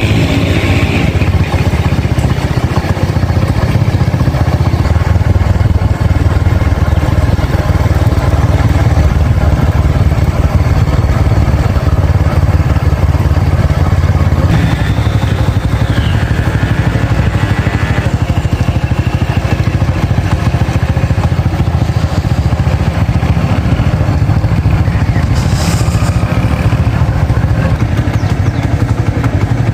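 A small engine running steadily, a low even drone.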